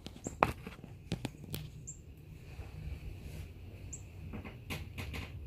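Faint low grunts of a whitetail buck in rut, under a steady low rumble. Short high bird chirps come about every two seconds, with a few sharp clicks.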